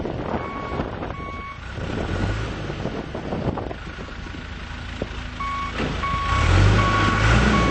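Backup alarm on a John Deere 410G backhoe loader beeping, a pair of beeps near the start and then a steady run of beeps from about five seconds in, showing the machine is in reverse. The diesel engine runs underneath and gets louder about six seconds in.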